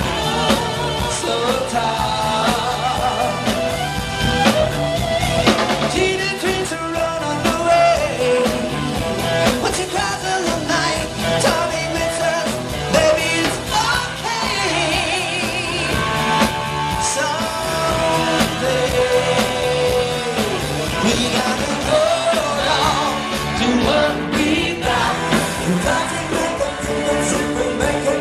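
Live band playing an up-tempo pop-rock song, with a lead vocalist singing over a steady drum beat.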